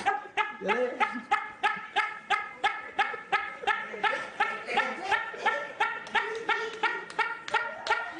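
A man laughing in a long, even run of short, high-pitched bursts, about three a second: a laugh that people liken to a hen's clucking.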